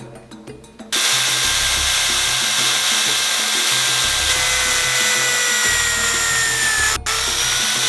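An electric drill in a drill stand boring a counterbore into a pine block with a spade bit. It starts about a second in and runs steadily, its whine sinking slowly in pitch as the bit cuts. It cuts out for an instant near the end, then runs on.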